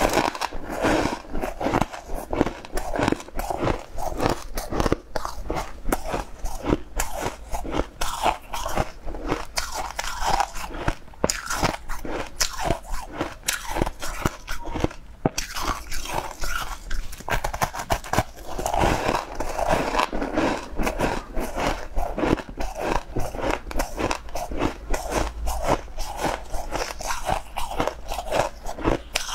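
Close-up eating sounds: someone biting into and chewing crisp white blocks, a dense run of crunches several times a second.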